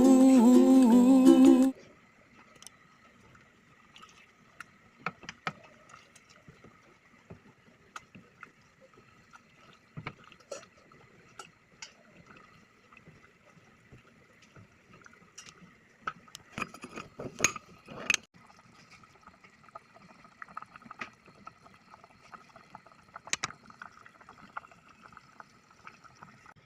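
Ukulele background music that stops about two seconds in, then faint kitchen sounds: scattered clinks and knocks, a busier run of them about two-thirds of the way through, over a faint steady hum and some liquid bubbling from cooking.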